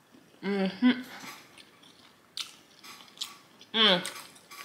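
Close-miked chewing and lip smacking while eating, with scattered wet clicks, broken by two short hums of the voice, one about half a second in and one near the end.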